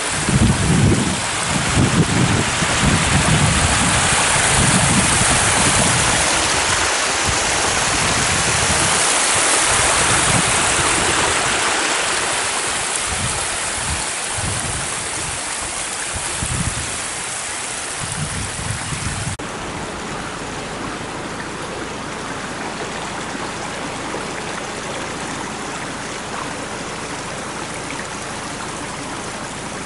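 Rainwater runoff rushing and splashing down over rocks in a small cascade, a steady rush with irregular low rumbles. About two-thirds through it changes suddenly to the quieter, steadier flow of a shallow stream over a sandy bed.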